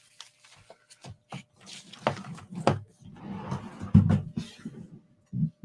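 Scattered small clicks and knocks from handling things on a desk, with a stretch of rubbing or rustling between about three and four and a half seconds in and a sharper knock about four seconds in.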